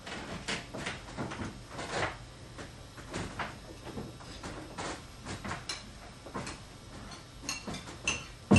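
Scattered knocks and clicks of kitchen cupboard doors and drawers being opened and shut at a counter, with a sharper, louder thump near the end.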